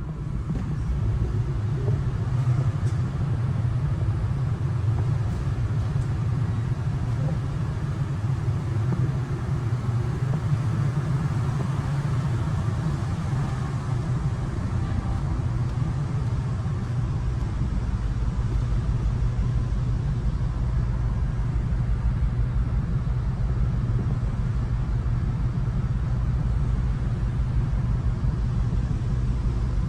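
Steady low drone of a large car ferry's engines heard aboard, a constant deep hum with a rumble under it that comes up about a second in and then holds unchanged.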